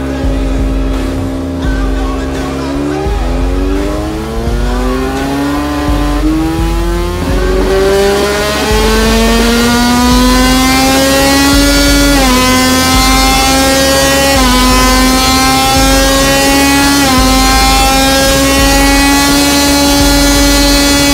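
KTM RC16 MotoGP V4 screamer race engine running on a dyno test bench: it holds a steady speed, then revs up smoothly over several seconds to high revs and runs louder there. Near the top the pitch dips briefly three times.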